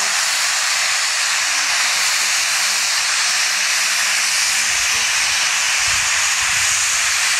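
Steady, loud hiss of steam escaping from a steam locomotive standing with its train.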